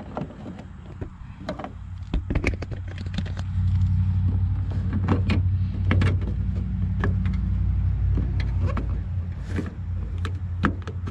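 Small plastic clicks and taps from handling a liftgate release switch and its wiring connector as it is plugged in and fitted into the housing, over a steady low rumble.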